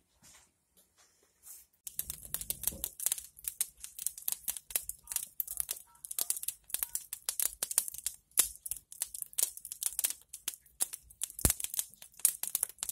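Wood fire of split logs crackling and popping irregularly, starting about two seconds in, with one louder pop near the end.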